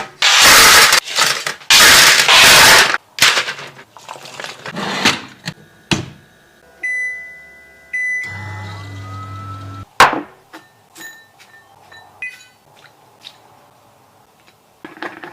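Kitchen handling sounds: two loud noisy bursts, then scattered knocks. Next comes a long electronic appliance beep, a short low hum, then a sharp knock and light clicks.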